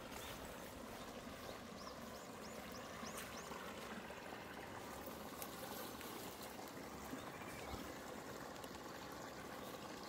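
Shallow rocky stream trickling steadily over stones.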